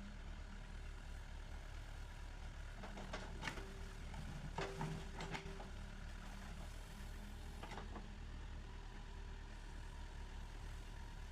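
Backhoe loader's diesel engine running steadily and faintly at a low hum, with a few short metallic clanks in the middle of the stretch.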